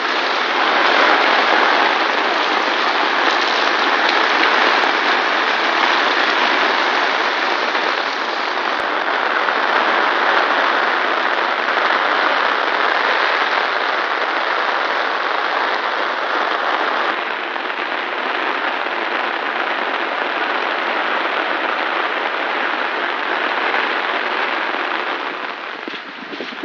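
Heavy rain pouring down steadily, a dense, even hiss of a prolonged downpour. It becomes a little quieter near the end.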